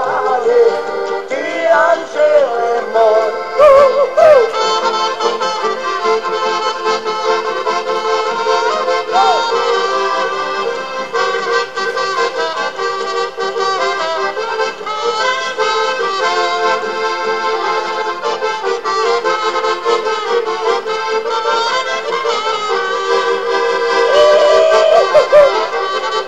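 Band music led by an accordion playing the melody over a steady accompaniment.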